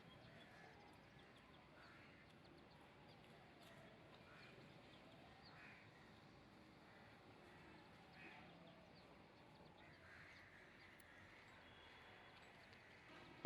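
Near silence: faint outdoor ambience with a few faint bird calls, crow-like caws, spread a couple of seconds apart.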